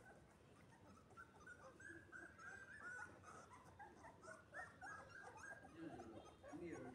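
A litter of very young puppies whimpering faintly: many short, high squeaks and whines, overlapping and repeating throughout.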